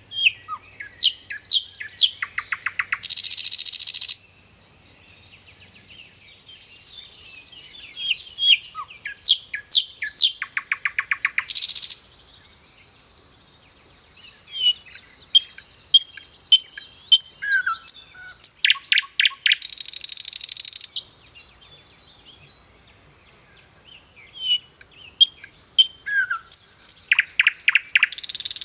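Bird song in four similar phrases. Each phrase is a run of high chirps and whistles, then a fast rattling trill, ending in a harsh hissing note about a second long.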